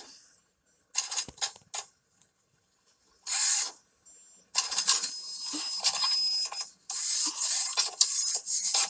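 Cartoon sound effect of a printer printing, heard through a tablet's speaker: mechanical noise in irregular bursts at first, then nearly continuous from about three and a half seconds in.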